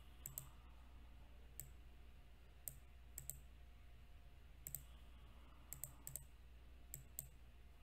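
Computer mouse clicking: faint, sharp clicks scattered irregularly, several in quick pairs, over a steady low electrical hum.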